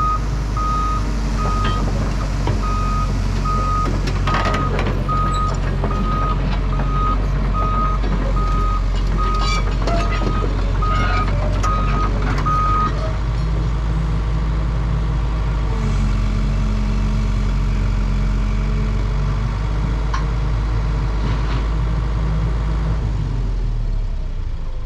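Liebherr 914 Litronic excavator's diesel engine running steadily, with its travel alarm beeping about one and a half times a second until about halfway. Metallic clanks and squeals come a few seconds in and again around the middle. The engine note shifts about two-thirds of the way through and drops away near the end.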